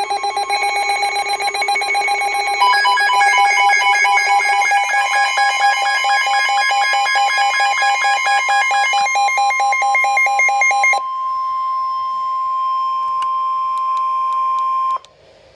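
Emergency alert tones: a rapidly pulsing electronic alarm of several pitches, stepping to new pitches twice, for about eleven seconds. It then gives way to a single steady tone for about four seconds, the NOAA Weather Radio 1050 Hz warning alarm tone, which cuts off suddenly.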